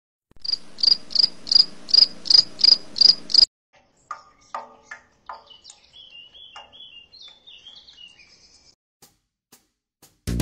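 Cricket chirping in a steady rhythm, about three chirps a second for three seconds, then cutting off suddenly. Fainter scattered clicks and short high chirps follow.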